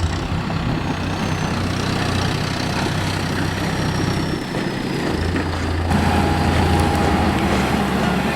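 Heavy farm-machinery diesel engine running steadily. The sound shifts abruptly about six seconds in, with a new steady tone coming in.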